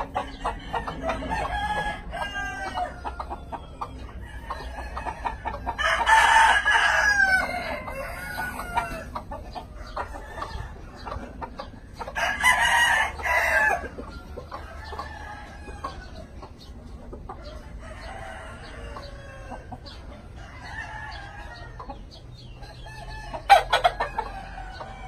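A flock of chickens clucking, with rooster crows twice, each crow about two seconds long and the loudest sounds apart from a short, sharp burst near the end.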